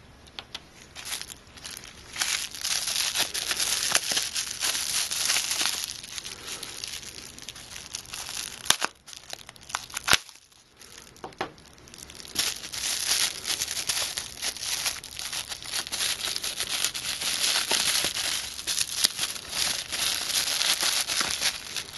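Pink anti-static bubble bag crinkling as gloved hands handle and open it, in two long stretches with a quieter lull a little before halfway.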